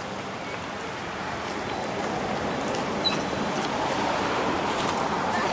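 Steady rushing outdoor background noise that grows slightly louder through the middle, with a faint short chirp about three seconds in.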